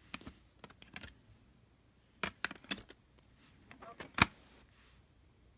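Plastic DVD case and disc being handled: scattered small clicks and taps in a few clusters, with one sharper snap about four seconds in.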